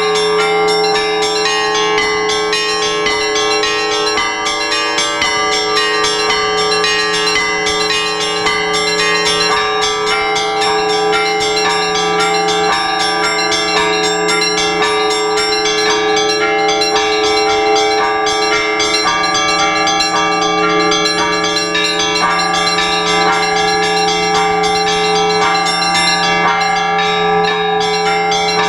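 Russian Orthodox church bells rung by hand in a continuous peal: many small bells struck in quick succession over the lasting hum of the large bells. This is the ringing that calls people to the all-night vigil.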